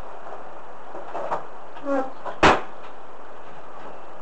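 A single sharp knock about two and a half seconds in, over steady hiss, with a brief squeak just before it and a couple of faint taps earlier.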